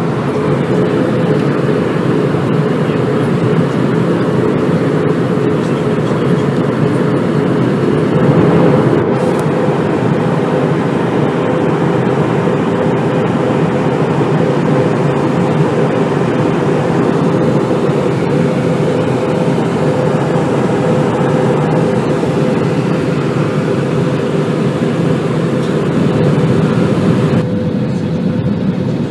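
Airbus A320 cabin noise heard from a window seat: the jet engines and rushing air make a loud, steady roar with a steady hum running through it. Near the end the higher hiss drops away suddenly.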